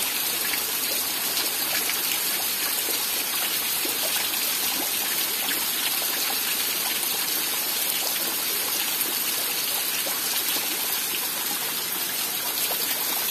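Steady rain with rainwater running, an even rushing noise that does not let up.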